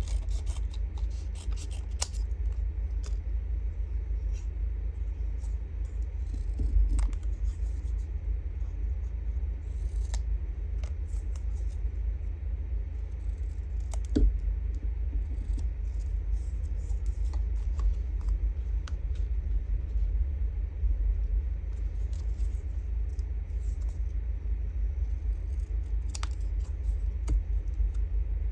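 Small scissors snipping through a strip of paper in a few separate cuts, the sharpest about 14 seconds in, over a steady low rumble.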